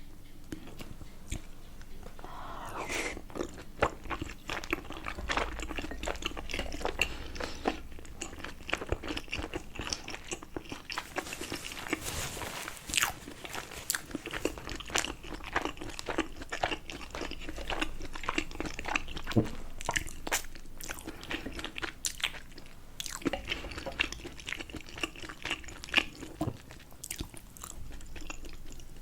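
Close-miked chewing and biting of momos dumplings, a steady run of irregular wet mouth clicks and smacks.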